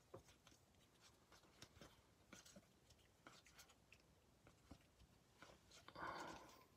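Faint, scattered clicks and soft sliding of baseball cards being flipped through by hand, card against card. A brief, slightly louder noise comes about six seconds in.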